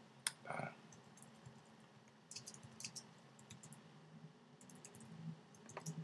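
Faint keystrokes on a computer keyboard: a single click, then short quick runs of key clicks with pauses between, as a line of text is typed.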